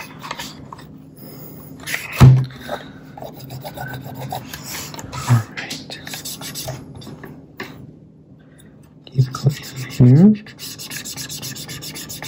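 Scrubbing and rubbing in the grooves of a plastic camera flash housing, a steady scratchy rubbing. It is broken by a few louder bumps about two seconds in, about five seconds in and around ten seconds in; the last comes with a brief rising squeak.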